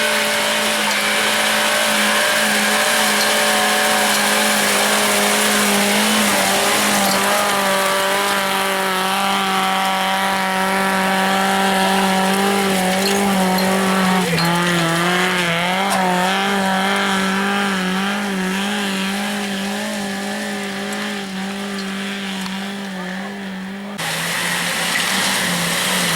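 Off-road 4x4 engine held at high revs, flat out, as it climbs a loose-stone slope, the pitch wavering up and down partway through as the revs rise and fall. Near the end the sound cuts abruptly to a slightly lower steady engine note.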